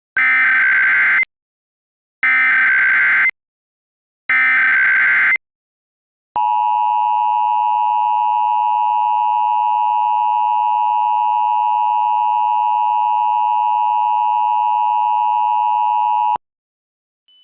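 Synthesized Emergency Alert System tones: three bursts of SAME header data tones, about a second each, followed by the EAS two-tone attention signal (853 and 960 Hz together), held steady for about ten seconds and then cut off sharply.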